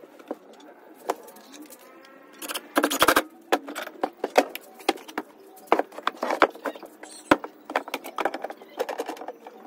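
Clicks, knocks and a clatter from metal bar clamps and plywood panels being handled and set together, loudest about three seconds in. A long wavering call sounds in the background about a second in.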